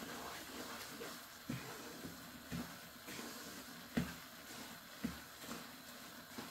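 Wooden spatula stirring a coarse ground-lentil mixture roasting in ghee in a non-stick frying pan: soft scraping with irregular knocks of the spatula against the pan, the loudest about four seconds in.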